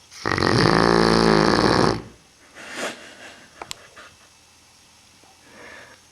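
Neapolitan mastiff snoring in its sleep: one long, loud snore of nearly two seconds, then a shorter, weaker breath, a few small clicks and a faint breath near the end.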